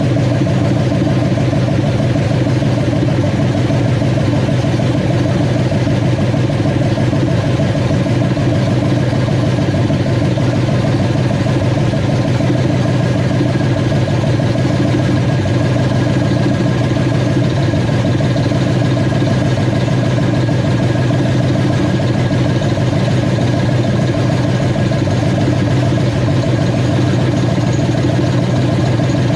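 Freshly rebuilt 302 (5.0 L) V8 of a 1989 Mustang GT, fitted with an F303+ camshaft and an X-pipe exhaust, idling steadily.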